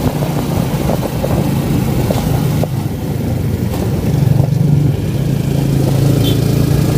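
Motorcycle engine of a Philippine tricycle (motorcycle with sidecar) running under way, heard from aboard as a steady engine hum that grows louder about four seconds in.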